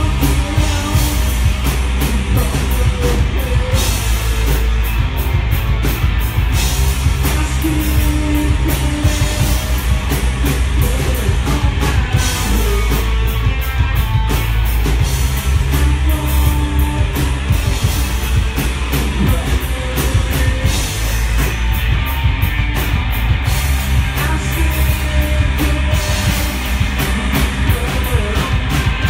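Live rock band playing: electric guitars and a drum kit, loud and unbroken, with a heavy bass and drum beat.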